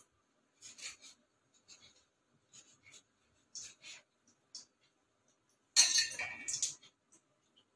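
Knife blade scraping and clinking against a stainless-steel idli plate as steamed idlis are loosened from its cups, a short scrape about once a second. A louder clatter of metal on metal comes about six seconds in.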